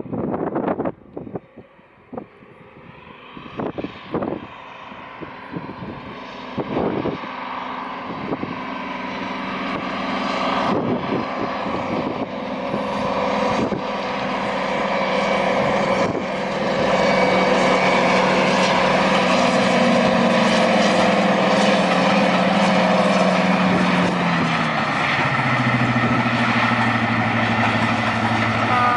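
Class 55 Deltic's twin Napier Deltic two-stroke diesel engines working under power with a train, growing from faint to loud as the locomotive approaches, the engine note dropping in pitch late on as it passes. Wind buffets the microphone in the first few seconds.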